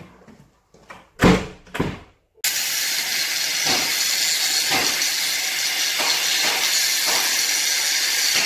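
Two sharp knocks, then a loud steady hiss that starts suddenly, with faint soft pulses about once a second.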